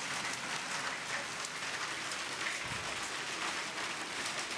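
Hail and heavy rain pelting down: a dense, steady clatter of countless small hits.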